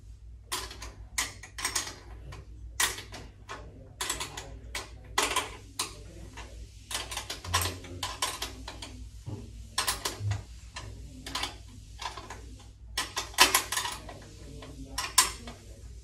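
A wrench working nuts back onto the bolts of a reverse-osmosis membrane housing's end cap: irregular clicks and clinks in short clusters.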